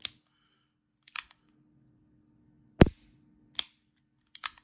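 Empty Smith & Wesson Model 65-5 stainless .357 revolver being dry-fired double action: sharp metallic clicks of the lockwork and hammer, about one every second, some of them doubled.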